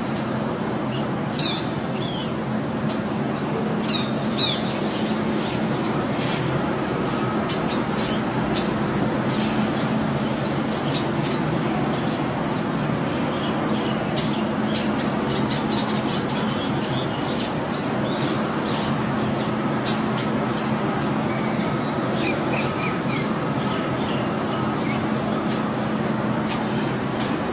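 Long-tailed shrike (cendet) giving short, sharp chips and chattering calls, many in quick succession, over steady background noise with a low hum.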